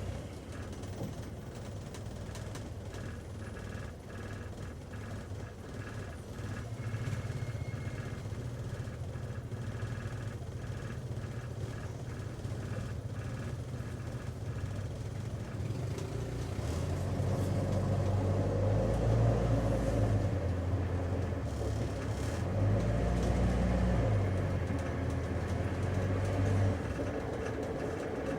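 Taxi cabin interior while driving: steady engine hum and road rumble, growing louder and heavier about two thirds of the way through as the car speeds up, then easing off near the end.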